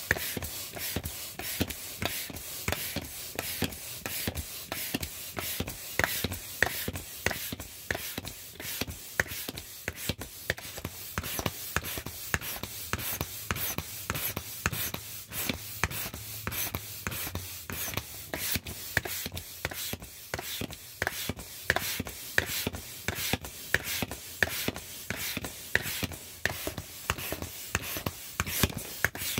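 Thin vinyl of an inflatable rooster toy crinkling and crackling as it fills with air from a pump hose, with irregular sharp crackles a few times a second.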